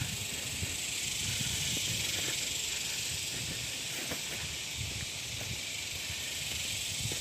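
A steady, high-pitched insect chorus, with low, irregular thumps and scuffs of footsteps on a dirt path.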